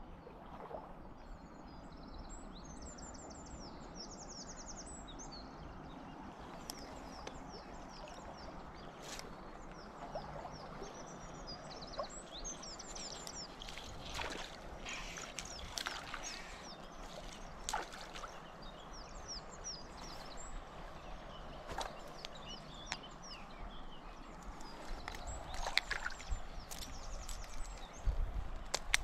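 Rural streamside ambience: a steady wash of wind and flowing water, with songbirds singing at intervals and a few sharp clicks and knocks. Louder low rumbling near the end.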